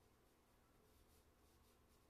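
Faint rubbing and scratching of charcoal on drawing paper under the hand, a couple of soft strokes against near silence.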